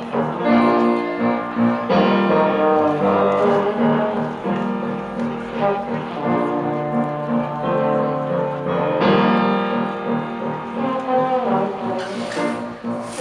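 Brass instruments playing slow, sustained chords that change every couple of seconds.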